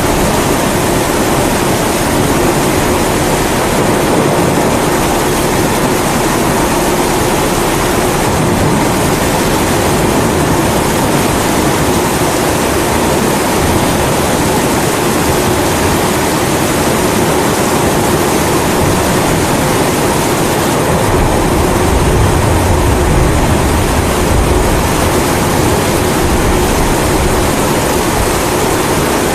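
Kerosene pressure stove burner burning steadily under constant rain. A low rumble of thunder swells about 21 seconds in and fades a few seconds later.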